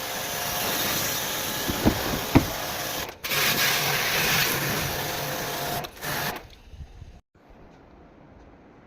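Jet pump pressure washer running and spraying water into an air-conditioner unit to clean it: a steady hiss with two short knocks about two seconds in and a brief break just after three seconds. The spray cuts off after about six seconds.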